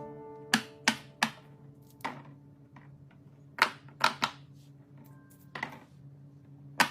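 Silicone Pop It fidget toy bubbles being pressed one at a time, giving sharp single pops at an irregular pace, about ten in all.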